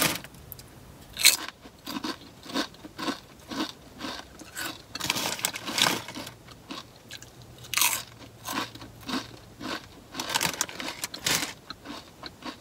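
Crisp SunChips being crunched and chewed in short, irregular crunches, with the crinkle of the foil chip bag as a hand reaches into it. The crunches come loudest in two clusters, about halfway through and near the end.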